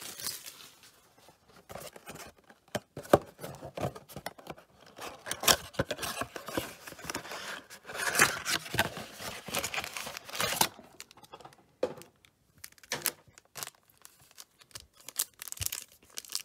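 Plastic wrap and cardboard of a trading-card blaster box being torn and opened by hand, then a foil card pack crinkling as it is pulled open. Irregular crinkles and short sharp rips with brief pauses between them.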